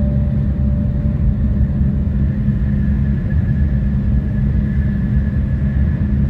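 Steady low rumble of a Shinkansen train running, heard inside the passenger car, with a faint steady high tone over it. The last note of the arrival chime fades out in the first moment.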